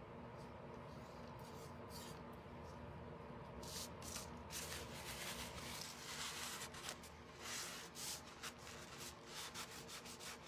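Paper towel rubbed against a wooden craft star in repeated short wiping strokes, starting about four seconds in. Before that there is only a faint steady room hum.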